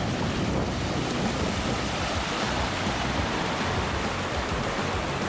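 Fast water rushing and churning white through a stone-lined channel below a low weir, a steady, unbroken rush.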